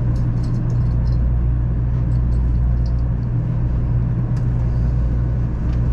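JR West 500 series Shinkansen running at speed, heard from inside a passenger car: a steady low rumble of wheels on rail with faint light ticks above it.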